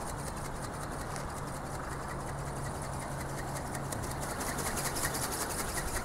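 Small geared electric motor of a flapping-wing ornithopter running steadily, a whirr with a fast, even ticking from the wing drive, over a steady rush of wind.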